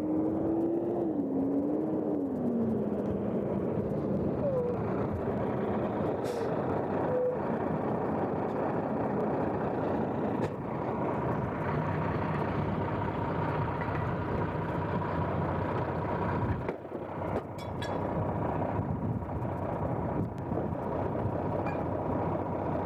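Fire engine (pumper) diesel running steadily as the rig pulls up and waits at the hydrant. A siren tone falls away in the first few seconds.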